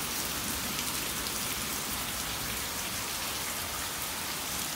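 Steady rain falling during a thunderstorm, an even hiss with no break.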